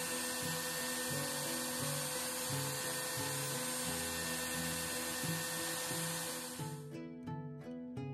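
A power tool runs steadily with a dense whirring hiss, then cuts off sharply about seven seconds in. Background music with plucked notes plays throughout.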